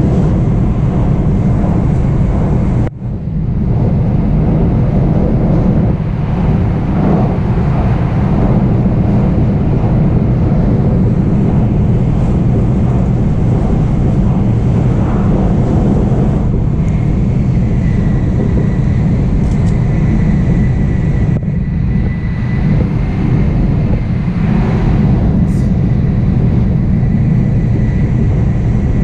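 Nozomi Shinkansen bullet train running at speed, heard from inside the passenger car: a loud, steady low rumble with a hiss above it. The rumble drops out sharply for a moment about three seconds in, and a faint steady high tone joins a little past halfway.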